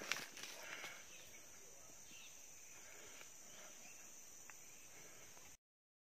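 Faint outdoor ambience: a steady quiet hiss with a few light knocks in the first second, then the sound cuts off to silence about five and a half seconds in.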